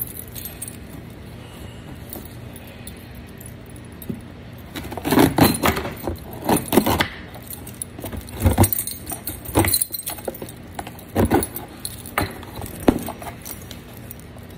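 A bunch of keys on a keyring jangling as one key is dragged through the packing tape on a cardboard box to cut it open, with scraping and tearing of the tape. The jangling and scraping come in irregular bursts, starting about five seconds in.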